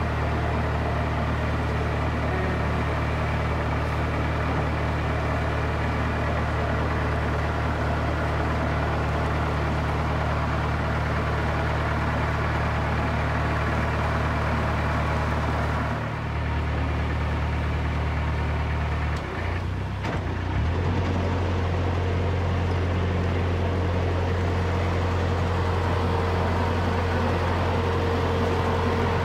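Narrowboat's diesel engine running steadily at low revs. About two-thirds of the way through, its note dips and shifts to a new, steady pitch.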